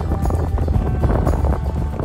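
Background music, with low wind rumble on the microphone underneath.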